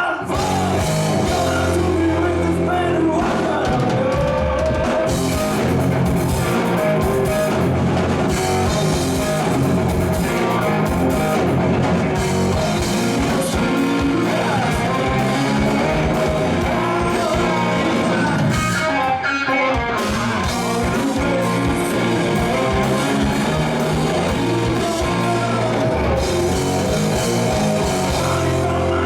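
Rock band playing a song live: guitar and drum kit with a singing voice.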